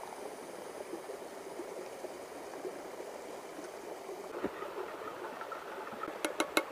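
River water running and splashing below a waterfall, a steady rushing hiss. A handful of quick sharp clicks come near the end.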